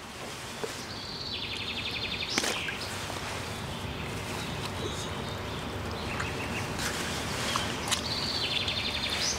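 A songbird sings the same short phrase twice, about six seconds apart: a high note running into a quick falling trill that ends in an upward flourish. Under it lies a steady outdoor background hiss.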